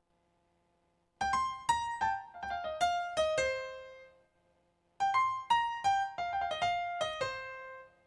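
Yamaha Tyros 5 arranger keyboard playing a short falling phrase of about ten notes in a bright piano-like voice. The phrase starts about a second in and ends on a lower note that dies away. It is played again from about five seconds in.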